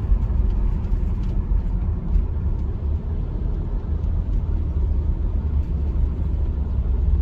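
Steady low drone of a car driving, engine and tyre noise heard from inside the cabin.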